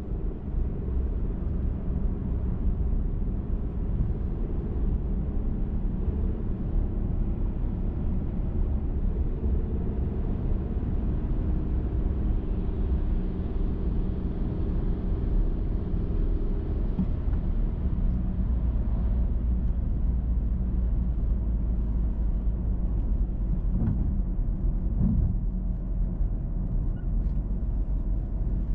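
A car driving along a highway: a steady low rumble of road and tyre noise with the engine's drone, and the higher hum from the engine fading about two-thirds of the way through.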